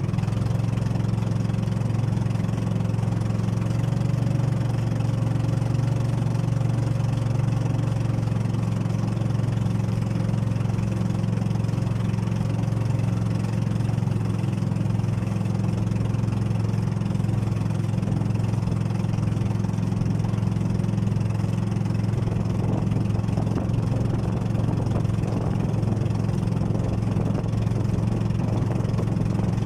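Outrigger boat's engine running steadily under way as a low, even drone, with water rushing and splashing against the bamboo outrigger float.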